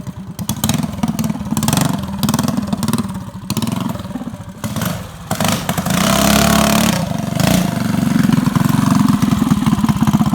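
Small single-cylinder four-stroke 212cc engine of a stage 4 dirt bike running with a rapid, even firing beat, growing louder in the second half as it is revved.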